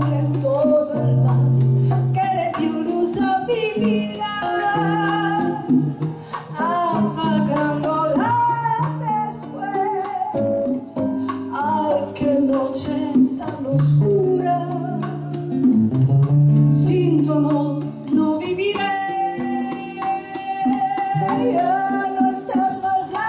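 A woman singing a Latin American song live, accompanied by a nylon-string classical guitar and light hand percussion.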